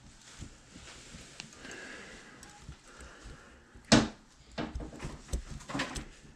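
Hands fitting a rectifier assembly onto the aluminium rear housing of a small alternator, working its four leads through the holes: low handling rustle, then a sharp knock about four seconds in and a few lighter knocks and clicks as the parts are pushed into place.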